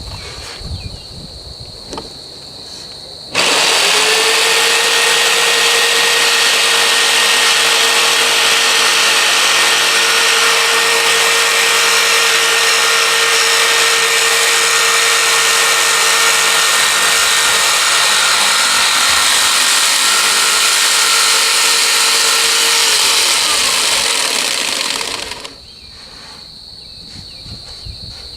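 Electric jigsaw switching on abruptly a few seconds in and running steadily at one speed for about twenty seconds while cutting 3/4-inch plywood, then slowing and stopping near the end.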